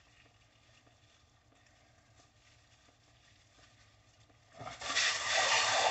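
Faint background at first; then, about four and a half seconds in, running water starts suddenly and loudly as a steady rushing splash.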